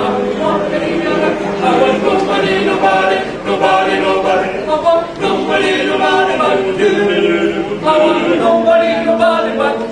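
A cappella choir singing in harmony: several voices holding chords together and moving from one chord to the next, with no instruments.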